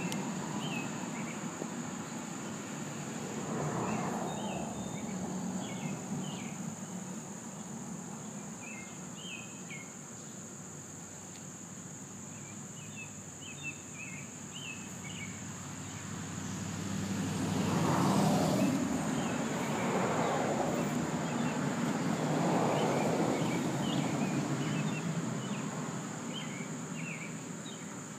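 Outdoor ambience: a steady high-pitched insect trill, scattered faint bird chirps, and a low rushing noise that swells twice, briefly about four seconds in and more strongly from about seventeen to twenty-four seconds.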